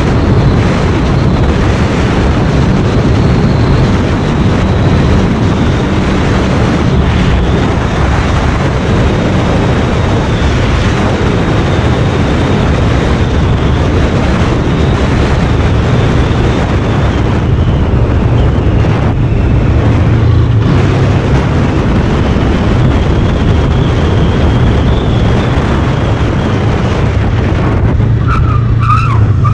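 Motorcycle engine running at road speed, with the steady rush of wind and road noise over the microphone. A brief high squeal comes near the end.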